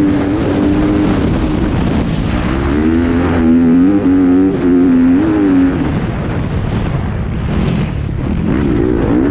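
2019 Yamaha YZ250F four-stroke single-cylinder motocross engine running hard, with wind rushing over the microphone. The revs rise and fall with the throttle a few seconds in, die away about six seconds in as the bike slows for a corner, and climb again near the end.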